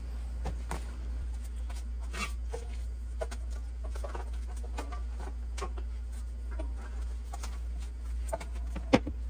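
Scattered light clicks, taps and rustles of tools and gear being handled around a workbench, over a steady low hum, with one sharper knock near the end.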